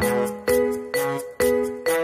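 Background music: a light, cheerful tune of struck notes, about two a second, each dying away before the next.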